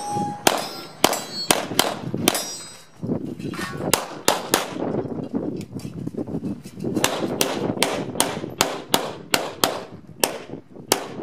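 Rapid gunfire from a Glock 17 9mm pistol on a USPSA stage: quick pairs and runs of shots, with a pause of about two seconds near the middle before the shooting resumes. Some shots are followed by a short metallic ring.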